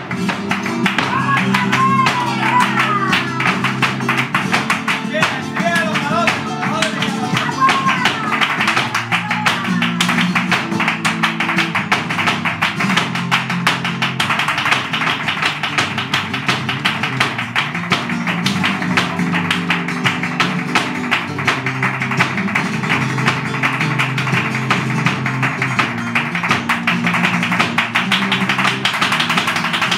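Live flamenco: strummed and plucked Spanish guitar under the rapid heel-and-toe footwork (zapateado) of a dancer's heeled shoes striking the stage, a dense patter of taps that runs throughout. A singer's wavering voice comes in over it in the first several seconds.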